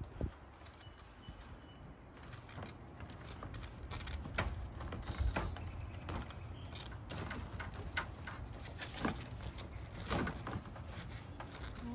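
Irregular clicks and knocks of hands-on installation work, over a steady low rumble.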